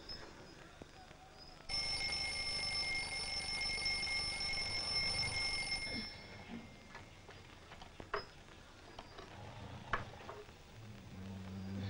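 An alarm clock bell rings steadily for about four seconds, starting near two seconds in, then stops. A few faint clicks follow, and a sleeper starts snoring near the end.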